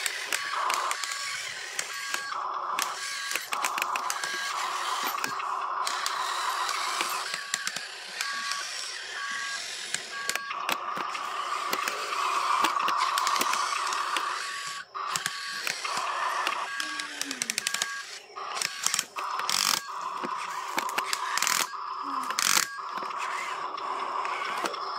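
Huina RC dump truck's electric drive motor and plastic gearbox whirring and grinding as it drives loaded over dirt, with scattered clicks. A repeating electronic beep in two tones runs over it.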